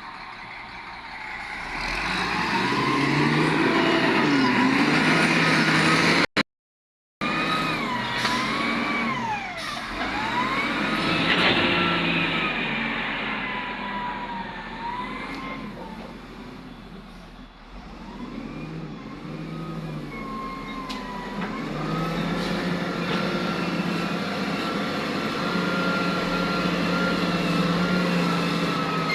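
Heavy diesel earthmoving machinery working, the engine and hydraulic whine rising and falling in pitch as it takes and sheds load. The sound cuts out completely for under a second about six seconds in.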